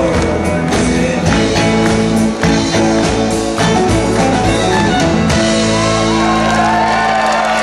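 Live country band (acoustic and electric guitars, fiddle, drums) playing the closing bars of a song, the strumming and drum hits stopping about five and a half seconds in as the band holds a final ringing chord.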